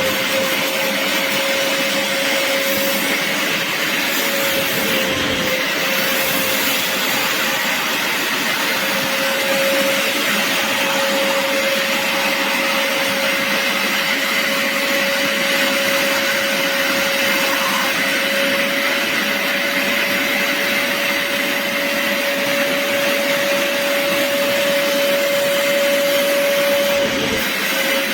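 BISSELL Little Green portable carpet and upholstery cleaner running: a steady motor whine over a rushing of suction air, with brief wavers about five seconds in and near the end.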